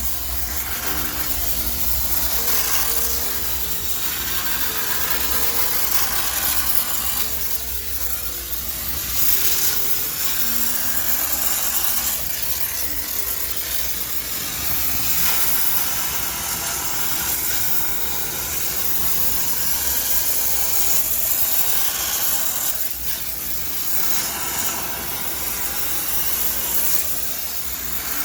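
High-pressure steam cleaner jetting steam with a steady hiss, steam-sanitising a washing machine.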